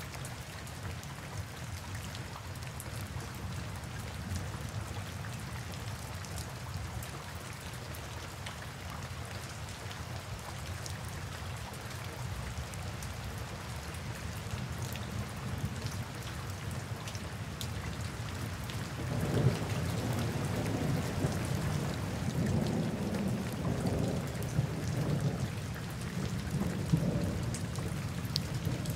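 Steady rainforest rainfall with scattered drops pattering close by. About two-thirds of the way through, a low rolling rumble of thunder swells up and carries on to the end.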